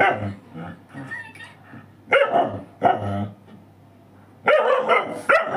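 A dog barking in short, loud bursts, about five barks spread over several seconds.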